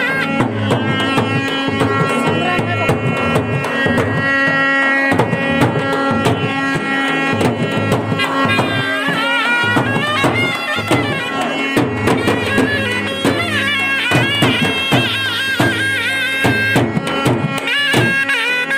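Baja band music: a reedy wind instrument carrying a wavering, ornamented melody over busy hand drumming.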